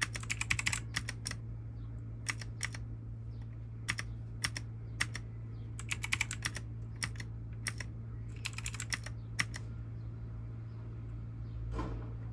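T8 RGB mechanical keyboard keys clicking in short flurries of rapid presses and single taps, with pauses of a second or two between them; a steady low hum runs underneath.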